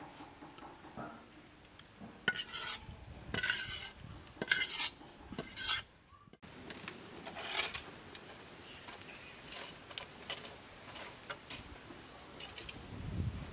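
A metal wok being scraped and clinked against as thick sauce is emptied out of it into a ceramic bowl: a string of separate scrapes and clinks, some with a short metallic ring.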